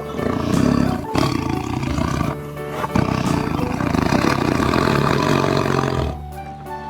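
Tiger roaring and growling, a recorded sound effect with a short break about a second in, stopping about a second before the end; background music plays under it.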